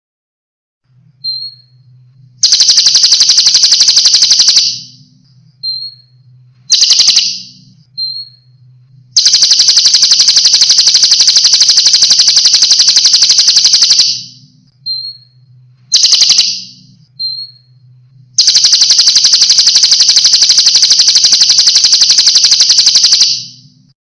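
Songbird-training recording of a small songbird: brief high chirps alternating with loud, fast rolling trills, the longest lasting about five seconds, in five trills in all. A faint low hum sits underneath.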